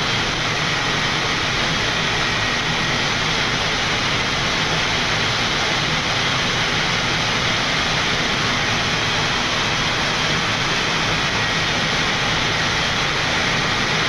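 Steady flight-deck noise of a Boeing 787 on final approach: an even rush of air and engine noise with the landing gear down and flaps at 25.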